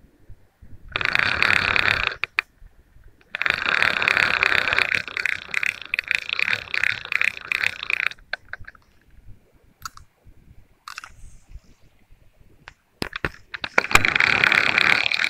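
Fishing reel being cranked to wind in line, in three spells: briefly about a second in, a longer stretch from about three to eight seconds in that pulses about three times a second, and again near the end.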